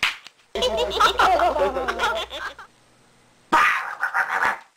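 A person's wordless vocal sounds in two bursts, each cut in and cut off abruptly, with a sharp click at the very start.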